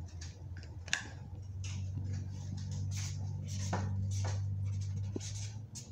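Miniature Persian cat purring, a low steady rumble that gets louder about two seconds in and stops just before the end, with light rustles and taps of handling.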